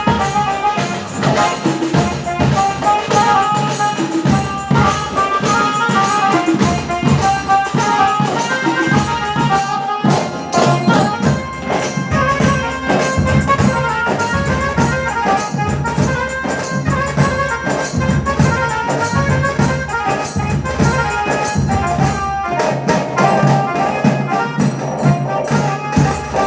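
Band music with rapid, dense tasa drumming under a melody line, running continuously.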